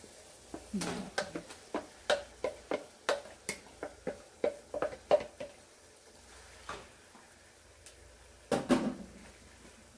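Wooden spatula knocking and scraping against a bowl while raw minced beef is scraped into a cooking pot: a quick run of sharp taps for the first five seconds or so, then a louder short clatter near the end.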